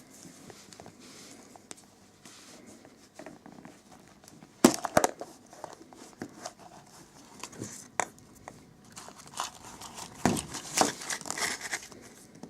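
Plastic wrapping crinkling and rustling as a small toy is unwrapped by hand. Several sharp plastic clicks are heard along the way, the loudest about a third of the way in.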